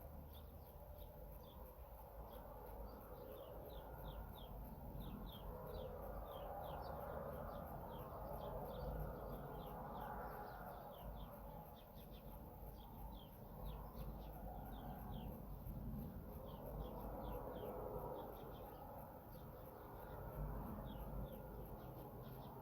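Quick, high-pitched animal chirps, each sweeping downward, repeat in runs throughout. Beneath them a rushing noise swells and fades every few seconds, over a low rumble.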